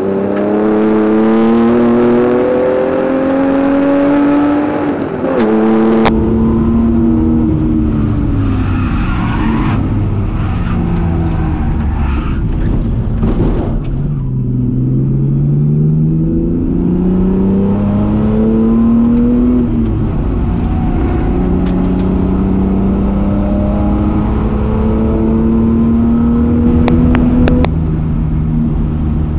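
Jaguar XJS race car's engine heard from on board under hard acceleration. The revs climb and drop back at each gear change, fall away under braking about halfway through, then pull up through the gears again.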